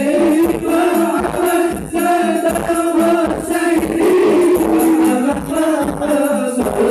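Devotional singing of a sholawat-style song, with voices held on long wavering notes over a steady hand-drum and jingle beat.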